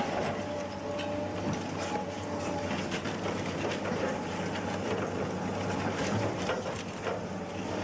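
A heavy processing machine running with a steady hum, with many irregular clanks and clicks of metal working throughout.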